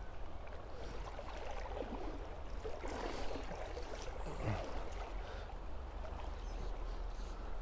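River water flowing, a steady wash with a low rumble beneath it, swelling briefly a couple of times near the middle.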